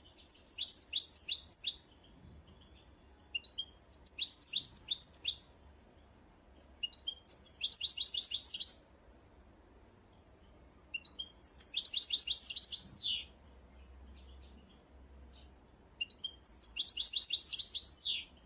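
A small songbird singing the same short phrase five times, each a quick run of high chirps that speeds into a trill, with pauses of a second or two between phrases.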